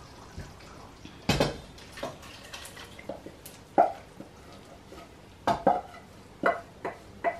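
Wooden spoon knocking and scraping against a metal saucepan as thick tomato sauce is scraped out into a steel cooking pot, with wet plops of sauce. The knocks come irregularly, about nine of them.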